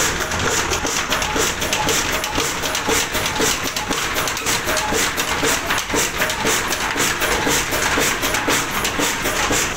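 30 HP Ruston Hornsby stationary diesel engine running steadily under load, a loud, even mechanical beat of repeated knocks, with its flywheel and flat belt drive spinning.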